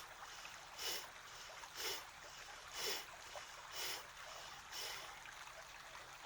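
Kapalabhati (skull shining breath) pranayama: short, forceful exhales puffed out through the nose about once a second, each a brief hiss, with quiet passive inhales between. A faint steady hiss sits underneath.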